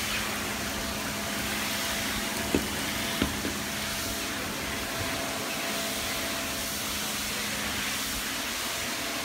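Steady outdoor hiss with a faint low hum under it, and two short knocks about two and a half and three seconds in.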